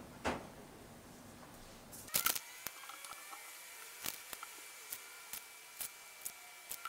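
Light clicks and plastic crinkles of kitchen tongs and a zipper storage bag being handled as boiled chicken is put into the bag, with a louder cluster of clacks a little over two seconds in and scattered small clicks after.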